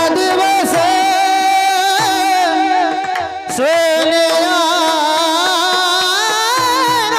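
Marathi kirtan singing: a high voice holds and ornaments a long wordless melodic line of the abhang over a steady drone, breaking off briefly about three and a half seconds in before resuming.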